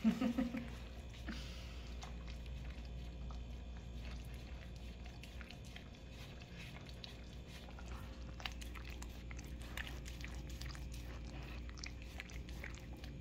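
Husky licking soft food off a ridged rubber lick mat: faint, irregular wet licking and smacking, over a low steady hum.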